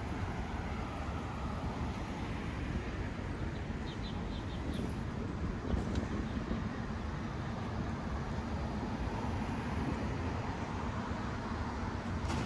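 Street traffic: a steady hum of passing vehicles, with a few short high ticks about four seconds in.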